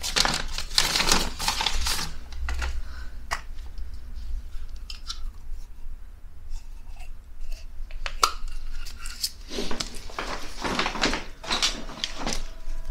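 A sealed paper photo envelope torn open by hand and the prints inside rustled out. It comes in bursts of paper tearing and crinkling near the start and again toward the end, with scattered light clicks and taps between.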